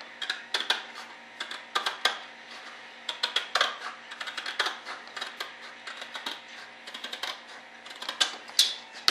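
Hand-held cutter (scissors or a blade) snipping and trimming the edge of a thin sheet part, making a run of sharp, irregular clicks at a few per second.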